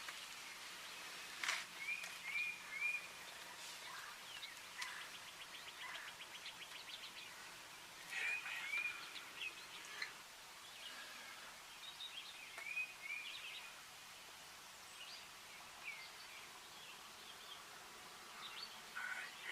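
Small songbirds singing faintly in the woods: a short three-note phrase repeated three times, a rapid trill about five seconds in, and scattered single chirps.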